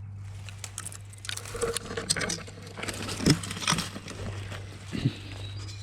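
Rustling and crackling of twigs and leaves as someone pushes through hedge undergrowth, in irregular snaps with the sharpest about three and five seconds in, over a steady low hum.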